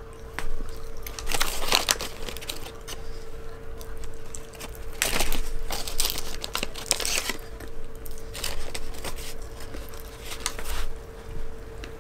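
Small paper fries bag crinkling and rustling in the hands, in several short bursts, with a faint steady hum underneath.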